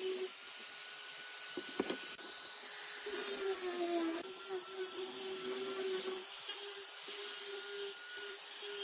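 Angle grinder with a sanding disc sanding a pine board: the motor's steady whine under the hiss of abrasive rubbing across the wood, with a short knock nearly two seconds in.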